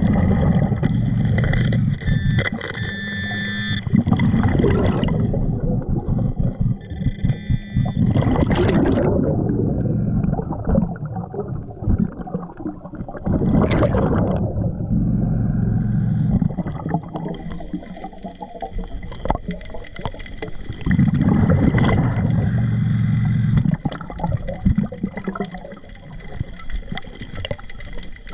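Scuba diver breathing through a regulator underwater: repeated bursts of exhaled bubbles gurgling past the microphone, with quieter hissing inhalations between them.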